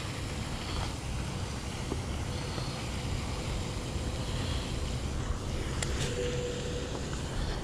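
Wind rumbling on the microphone over a steady rushing haze of water from a pond fountain's spray, with a couple of light clicks about six seconds in.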